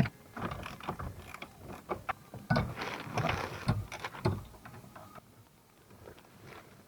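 Ratchet wrench clicking and metal tools knocking as the steering column's mounting bolts are undone, in irregular bursts with a few short scrapes.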